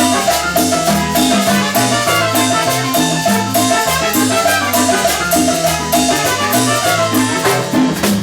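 Salsa-style tropical dance band music with a steady beat, a repeating bass line, percussion and a melodic line on top.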